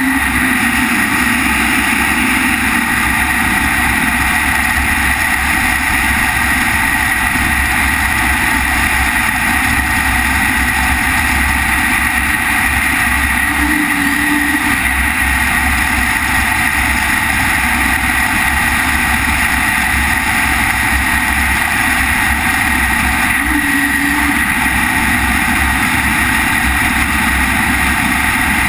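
Loud, steady rush of wind over the camera microphone during wingsuit freefall, with a few brief low blips.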